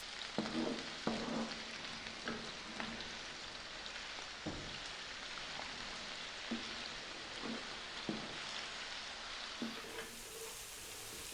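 Chopped red onion, garlic and olives sizzling in hot olive oil in a frying pan, with a utensil stirring them and knocking against the pan now and then.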